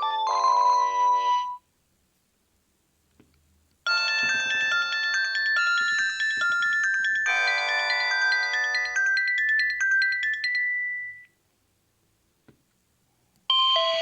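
Electronic ringtone melodies from a Panasonic KX-TG8301JT cordless phone, one after another. One tune stops about a second and a half in, a longer tune of quick stepped notes plays from about four seconds to eleven, and the next starts near the end. There is a faint click in each pause.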